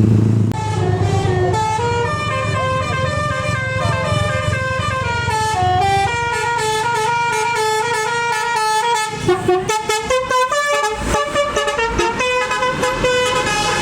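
Bus telolet horn playing a tune of held notes that step up and down in pitch, several tones sounding at once, over the rumble of the bus's engine.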